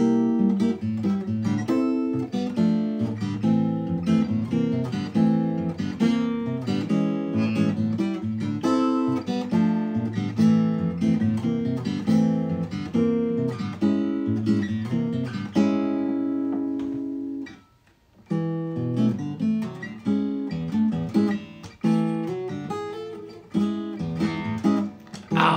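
Taylor steel-string acoustic guitar played solo in an instrumental break, a steady run of picked and strummed chords. About two-thirds of the way through, a chord is held and let ring, then stops for a brief pause of about half a second before the playing picks up again.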